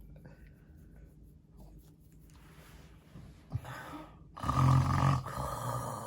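A person imitating loud snoring: after a few quiet seconds, a short rasp and then one loud, rough snore with a low buzz about four and a half seconds in, trailing off.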